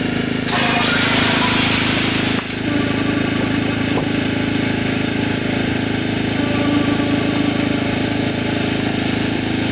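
An engine idling steadily, with a rush of hiss over it from about half a second in that stops abruptly about two seconds later.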